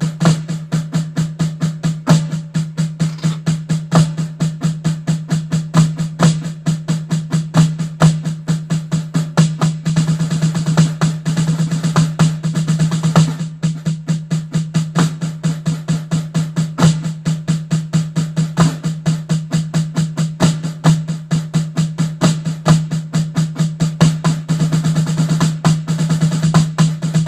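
Snare drum played solo at a fast tempo, a continuous stream of quick strokes with accented hits and a ringing drum tone, with a stretch of rolls near the middle.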